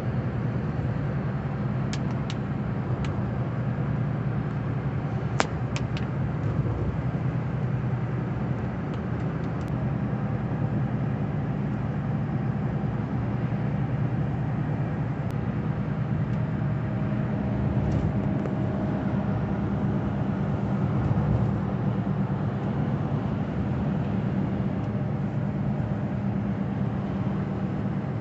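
Steady low road and engine hum of a car, heard as it is being driven, with a few light clicks in the first several seconds.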